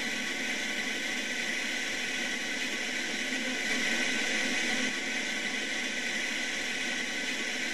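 White-water rapids rushing over rocks: a steady, even rush of water, a little louder about four seconds in.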